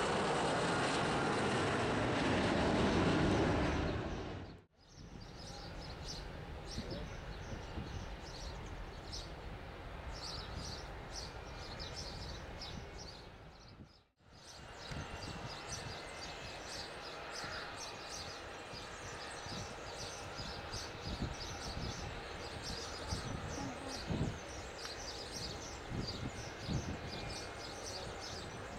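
Boeing 757 jet airliner climbing out after takeoff, its engines loud at climb power with tones falling in pitch as it passes, until the sound cuts off about four and a half seconds in. Then a quieter steady distant airport rumble with faint high chirps.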